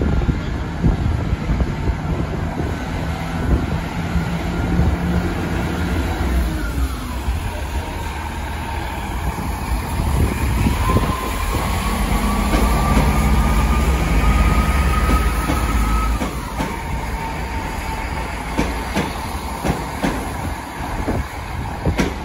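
GWR Turbo diesel multiple unit passing: diesel engines running with a thin, steady whine that rises slightly, and wheels clacking over rail joints. It is loudest a little over halfway through as the train goes by close.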